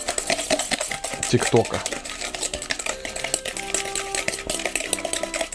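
Rapid clicking of a utensil against a bowl as egg and sugar are stirred and beaten together by hand.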